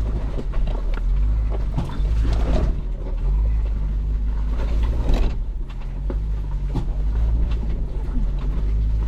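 Ford Bronco's engine running low and steady as it crawls over rough off-road terrain. Two short, louder noises break in, about two seconds in and again about five seconds in.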